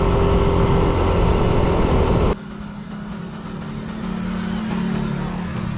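Loud wind rush and scooter engine heard from the rider's own bike on the move. About two seconds in it cuts abruptly to a group of scooters approaching, their engines humming steadily and growing louder as they come closer.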